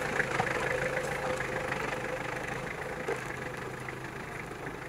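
Four-wheel-drive SUV's engine running steadily as it drives slowly along a dirt track, fading slightly as it moves off.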